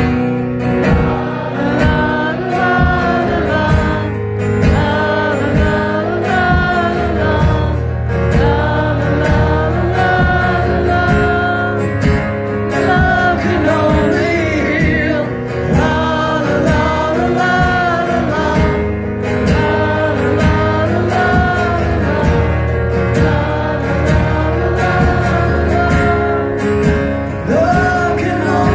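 Live acoustic music: a male singer holding long, sliding notes over a strummed acoustic guitar.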